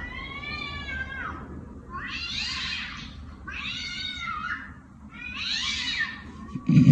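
A cat meowing four times, each call about a second long and rising then falling in pitch. A loud low thump comes right at the end.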